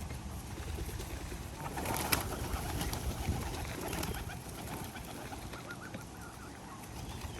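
Park pigeons cooing among outdoor ambience, with a sharp click about two seconds in.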